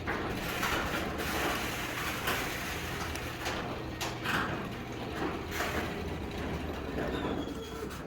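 Sectional garage door moving along its metal tracks: a steady low rumble with repeated rattles and scrapes from the rollers and panels.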